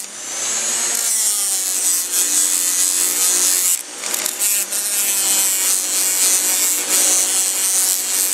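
Small high-speed rotary tool with a cleaning wheel scrubbing old gasket sealant off the intake port face of a 1987 Suzuki GS450 cylinder head: a steady motor whine with a harsh scratching hiss. It eases off briefly about four seconds in, then bears down again.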